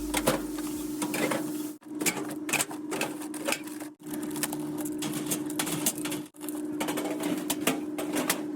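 Rapid mechanical clicking and clattering over a steady hum, broken off abruptly three times.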